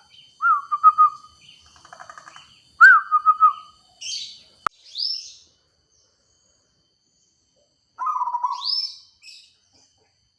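Zebra dove (perkutut) cooing in three phrases of quick, rippling notes, with a softer phrase between the first two. Short higher-pitched rising chirps come in twice, and there is one sharp click midway.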